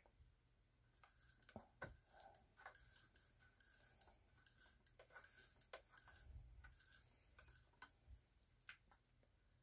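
Near silence with faint, irregular light clicks from a sewing machine's freshly greased gears and linkages as the mechanism turns over.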